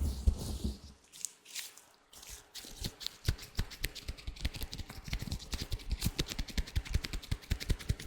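Latex gloves handled close to the microphone: low rubbing thuds in the first second, then after a short lull a fast, dense run of small crackling taps and clicks, several a second.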